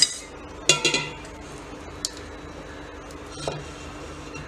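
Stainless steel pots clinking and ringing, with a wooden spatula knocking and scraping against them as thick pearl millet porridge is scooped into a vessel of water. A cluster of ringing clinks comes about a second in, then single knocks near two and three and a half seconds, over a faint steady hum.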